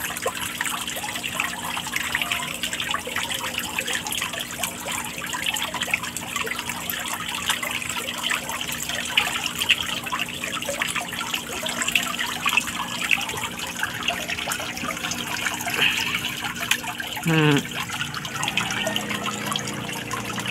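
A crowd of koi splashing and slurping at the water surface as they crowd in with open mouths, a dense crackle of small splashes over steady trickling water, with a low steady hum underneath.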